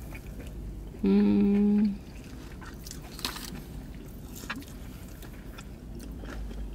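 A woman hums one steady closed-mouth "mmm" for just under a second, about a second in, while eating. The rest is faint chewing with a few small clicks.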